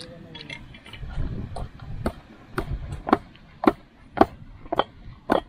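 Sharp, evenly spaced knocks, about two a second, starting about two seconds in. These are hard blows on dried talisay (tropical almond) fruits to crack them open for the kernels.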